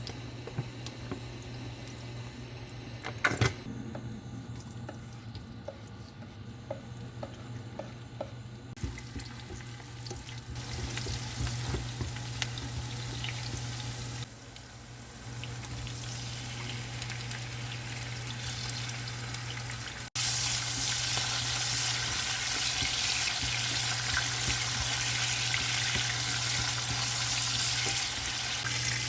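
Food frying in a pan, a steady sizzling hiss that jumps louder after a cut about twenty seconds in, over a constant low hum. A single sharp knock comes about three seconds in.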